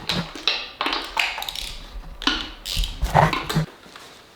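Hand tools and engine parts tapping and knocking against each other during engine disassembly: an irregular run of sharp taps and clatters, about a dozen in four seconds.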